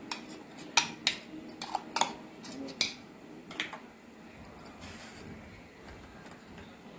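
A steel spoon clinking against the inside of a stainless-steel mixer-grinder jar while stirring thick green chutney: about eight sharp clinks in the first four seconds, then only faint spooning sounds.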